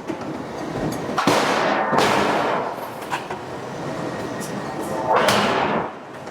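Hydraulic forging hammer striking a steel billet in heavy blows, each a sudden hit followed by a rushing hiss. Two blows come close together about a second in and another near the end.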